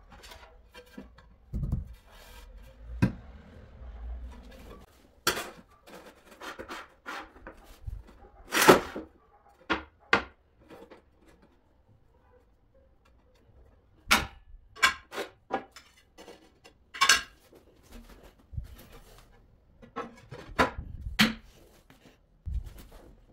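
Ceramic floor tiles clacking and scraping against each other and the floor as they are handled and set in place, with a manual rail tile cutter worked on a tile. Sharp irregular knocks come and go, with a couple of longer scratchy scrapes.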